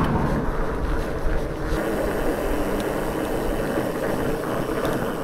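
Wind rushing over the microphone with the steady rumble of mountain bike tyres rolling along a tarmac road.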